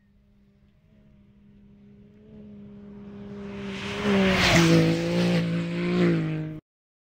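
Race side-by-side UTV approaching fast on a dirt course and passing close by. Its steady engine note grows louder, then drops in pitch as it goes past, with a rush of tyre and dirt noise. The sound cuts off suddenly near the end.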